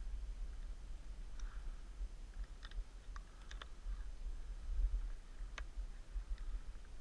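Low, steady wind rumble on the microphone, with a handful of short, sharp clicks scattered through it.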